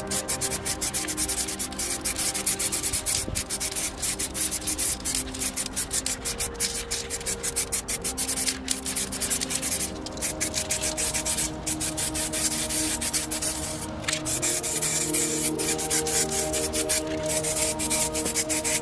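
Aerosol spray-paint cans hissing in many short, rapid bursts with brief gaps between them, over soft ambient background music.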